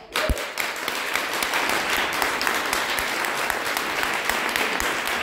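Audience applauding: the clapping breaks out suddenly and then keeps up steadily.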